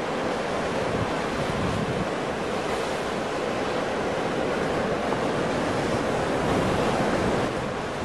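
Ocean surf: waves breaking and rushing as a continuous wash of churning water, swelling a little toward the end.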